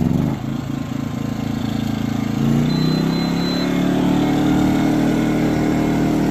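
Predator 2000 inverter generator's small single-cylinder engine running just after a pull-start, uneven and slow at first, then speeding up about two and a half seconds in and settling at a steady higher speed. It had been suspected of being flooded, and the owner thinks it needs a new spark plug. A brief high beep sounds near the middle.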